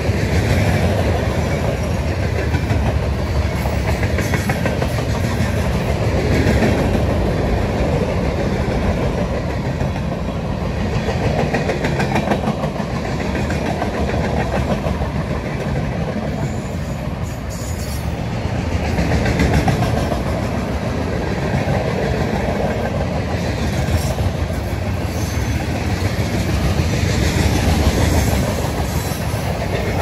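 CSX freight train's railcars (covered hoppers, boxcars and tank cars) rolling past: a steady rumble and rattle of steel wheels on the rails that swells and eases slightly, with occasional clicks.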